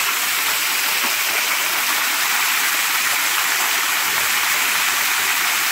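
Small waterfall pouring steadily onto the rocks and shallow water of a creek: a continuous, even rush of falling water.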